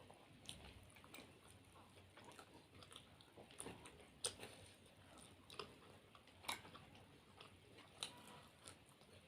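People chewing and biting food during an eating challenge of momos and chilli potato, with a few sharp clicks scattered through; the loudest come about four seconds and six and a half seconds in.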